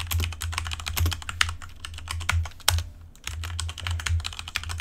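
Fast typing on a computer keyboard: a quick run of key clicks, each with a low thud, a brief pause about three seconds in, then more typing.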